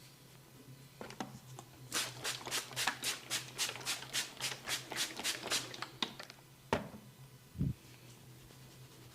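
A barber's hands patting and tapping in a quick, even rhythm during a head massage, about four strokes a second for several seconds. A single sharp click follows, then a dull thump.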